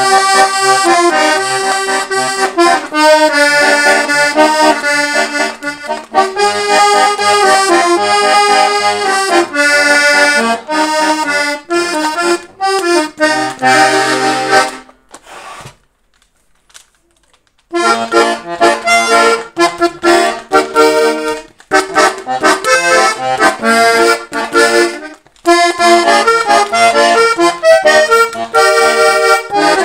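Hohner Liliput accordion being played: a melody over held chords with short bass notes. It stops for about two and a half seconds around halfway, then the playing starts again.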